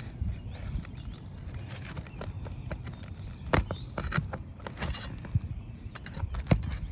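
Irregular clicks, knocks and scraping of a metal tool working against asphalt roof shingles as the shingle nails are pried loose, with two sharper knocks, one about halfway and one near the end.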